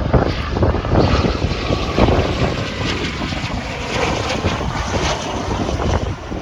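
Jet aircraft engine noise as a military jet passes, with a steady rush and gusts of wind buffeting the microphone; it eases off near the end.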